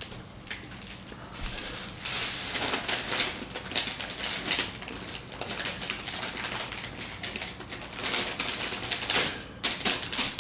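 Shiny metallic gift wrap crinkling and tearing as a present is unwrapped by hand, a dense crackling rustle that grows louder about two seconds in.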